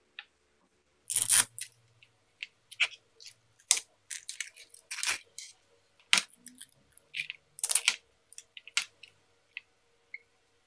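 Handling noise from a black 3D-printed plastic power bank holder: irregular clicks, knocks and scraping as parts are fitted together and a hook-and-loop strap is pulled through its slots. The loudest scrape comes about a second in.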